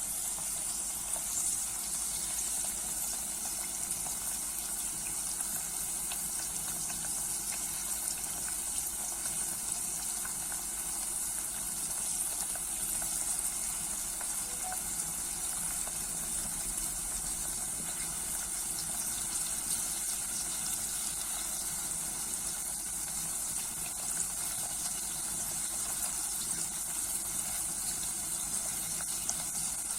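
Herbs and garlic in olive oil sizzling in a saucepan over very low heat, a steady hiss with faint crackles, as the mixture cooks down toward a syrup.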